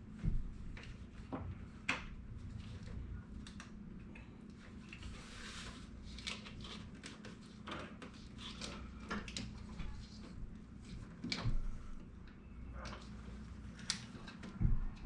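Scattered light clicks and knocks of hand work on car parts and tools, with a few louder knocks, including one near the end, over a steady low hum.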